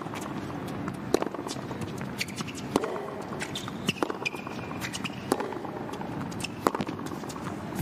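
Tennis rally on a hard court: sharp racket strikes and ball bounces every second or so. Short shoe squeaks come about four seconds in, over a steady hall murmur.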